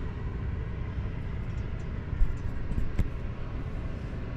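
A steady low rumble, with two brief knocks about two and three seconds in.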